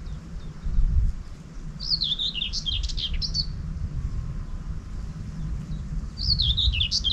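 A songbird sings two short warbling phrases that step down in pitch, one about two seconds in and a second starting about six seconds in, over a steady low rumble of wind buffeting the microphone.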